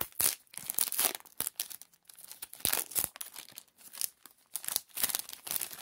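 Trading cards handled in the hand: cards slid one at a time off the front of a stack, a run of short, irregular papery swishes and flicks.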